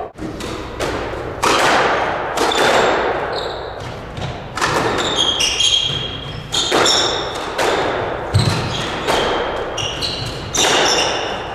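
Squash rally: the rubber ball smacks off racquets and the court walls about once a second, each hit ringing in the court, while sneakers squeak sharply on the hardwood floor between shots.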